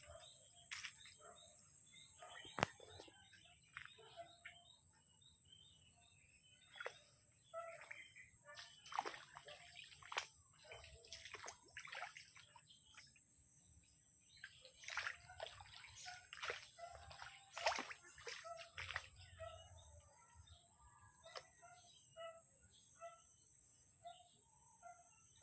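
Many birds chirping and calling in short, scattered notes, busiest in the middle, over a steady high-pitched hiss.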